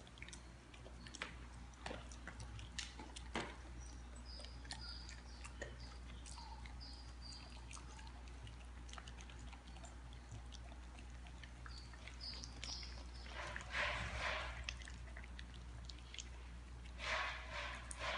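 Dogs eating dry kibble from steel bowls: scattered crunching and small clicks of kibble against the metal. The eating gets louder twice for about a second, once around two-thirds of the way through and once near the end.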